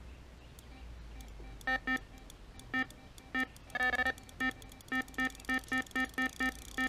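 Electronic carp bite alarm bleeping: scattered single beeps that come faster and settle to about three a second near the end, the pattern of a fish pulling line through the alarm on a bite.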